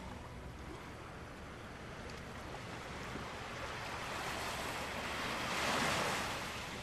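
Small waves washing onto a sandy beach, the surf swelling to its loudest shortly before the end and then easing off.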